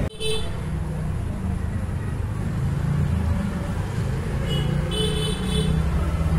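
Street traffic: a steady low rumble of vehicles with short horn toots, one right at the start and a few more about four and a half to six seconds in.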